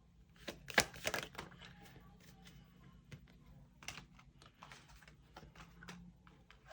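Tarot cards being shuffled and handled: a run of irregular light clicks and taps, over a faint steady hum that stops about six seconds in.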